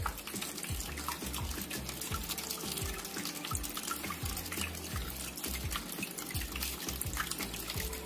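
Small cement tabletop waterfall fountain running: water from its submersible pump trickling and splashing down into the basin in many small drips, over background music.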